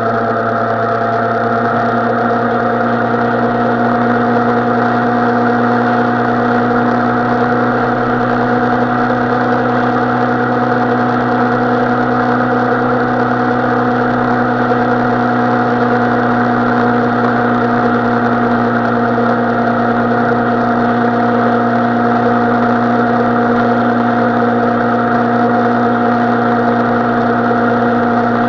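Suzuki Bandit 650N's inline-four engine running steadily at a constant pitch, with no revving or change in speed.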